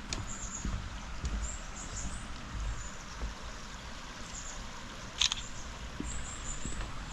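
Outdoor ambience: short high-pitched chirps come every second or so over a low rumble, with one sharp click about five seconds in.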